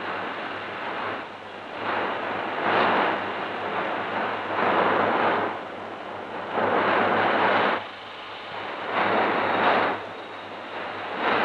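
A rushing, hissing noise that swells and fades in waves about every one to two seconds, with no clear knocks or tones.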